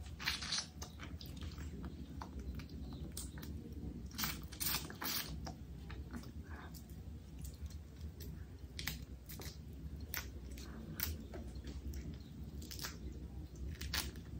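A person chewing and biting food close to the microphone, with irregular sharp mouth clicks. A steady low hum runs underneath.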